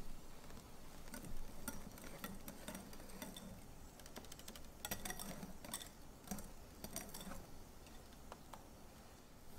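Wire balloon whisk lightly clicking against a glass mixing bowl in irregular ticks while folding egg yolks into whipped egg whites, thinning out near the end.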